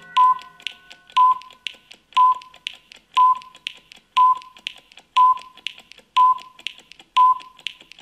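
Countdown timer ticking sound effect: a sharp tick once a second, each with a brief ringing tone, and a softer tick about half a second after each one. A held chord of several tones sounds at the start and fades out within the first two seconds.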